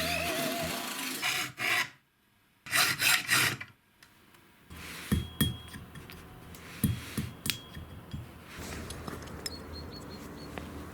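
Metalwork on a small steel fireplace: a few short bursts of harsh rasping noise, then quieter scraping with scattered clicks. Background music fades out near the start.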